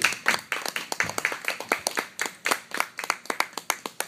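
Audience applause: many hands clapping in a dense, uneven patter of sharp claps.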